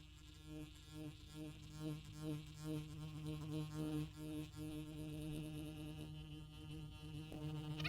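Electric massage gun buzzing steadily, its tone pulsing slightly; it is loosening the muscles before a chiropractic adjustment.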